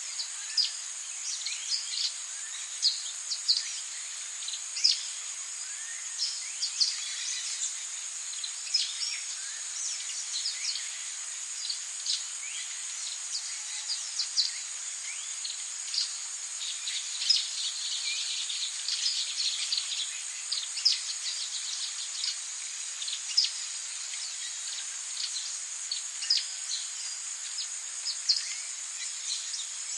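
Jungle ambience: a steady, high-pitched drone of insects, with many short bird chirps and whistles scattered over it throughout.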